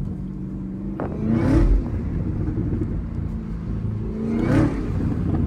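Chevrolet Camaro ZL1 1LE's supercharged 6.2-litre V8 heard from inside the cabin, running under a steady drone and revving up twice, its pitch rising each time, with a sharp click about a second in.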